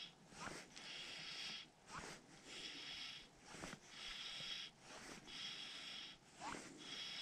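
Fly line being stripped in by hand through the rod guides in steady pulls: about five soft hissing draws, one every second and a half or so, with short rising squeaks between them, as a streamer is retrieved.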